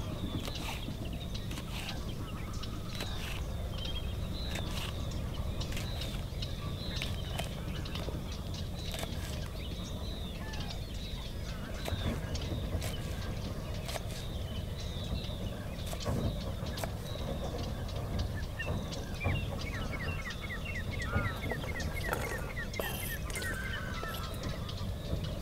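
A knife chopping green chillies on a wooden board in short, uneven taps, while birds chirp repeatedly in the background. About twenty seconds in, a bird gives a rapid chattering call.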